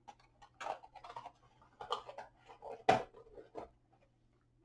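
Plastic toy packaging and small accessories being handled: irregular light clicks and rustles, with a sharper click about three seconds in.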